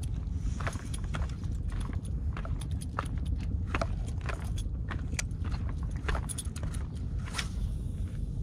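Steady low wind rumble on the microphone with a string of sharp, irregular clicks, then near the end the swish of a spinning rod casting a lure.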